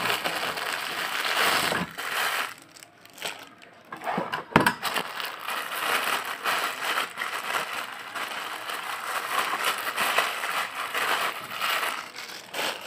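Thin plastic packaging bag crinkling and rustling as it is handled and pulled off a new sewing machine motor, easing off briefly about two seconds in, with one sharp knock about four and a half seconds in.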